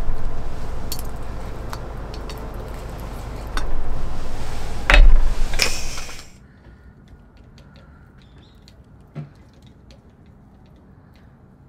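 Eggs sizzling in a small frying pan over a portable gas canister stove, with metal utensils scraping and clinking against the pans; the loudest clatter comes about 5 s in. About 6 s in it cuts to a much quieter spoon tapping and scraping in the pan.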